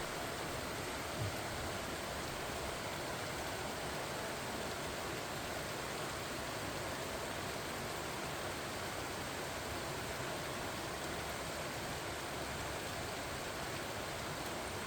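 Steady rain falling on pumpkin vines, an even hiss without pauses, with one faint low thump about a second in.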